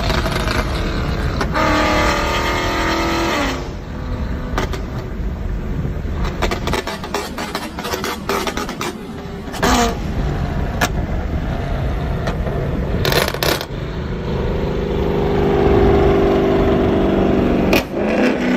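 Ford Mustang GT's 5.0 Coyote V8, fitted with long-tube headers, an X-pipe and a muffler delete, running loud on the move and revving up around two seconds in and again near the end. A few sharp pops come through from its burble tune.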